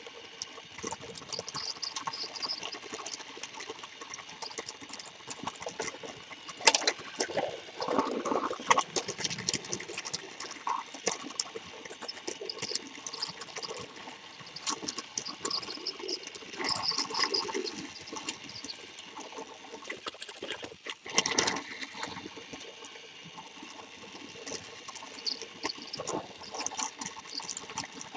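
Motorized plastic toy train, heard close up from a webcam riding on it: a steady buzzing whir of its small motor and gears with its wheels rattling and clicking, and a sharp knock about seven seconds in.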